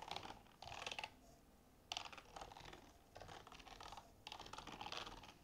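Typing on a computer keyboard, faint, in short bursts of keystrokes with brief pauses between them.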